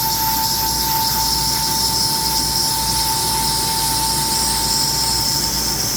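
CNC lathe making its final finish pass inside a goose call barrel: a steady, high-pitched whine from the cut over a hiss, with the whine fading out near the end.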